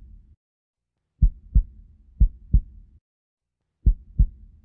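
Deep, low thumps in a heartbeat rhythm, added as an end-card sound effect. They come in pairs: two pairs, then a short silence of about a second, repeating about every two and a half seconds. Each thump leaves a faint low rumble behind it.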